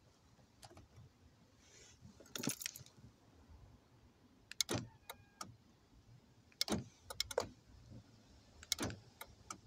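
Aftermarket remote central locking on a Fiat Albea being tested with its key fob: four short clusters of clicks and clunks as the door locks are worked, with the car key on the fob jangling.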